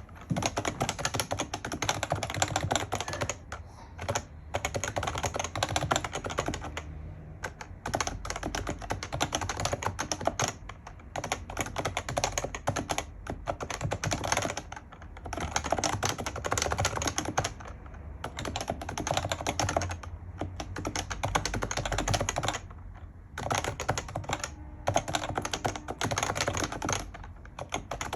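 Fast continuous typing on an HHKB Professional JP keyboard with Topre electrostatic capacitive switches: rapid keystrokes in runs, broken by brief pauses every few seconds.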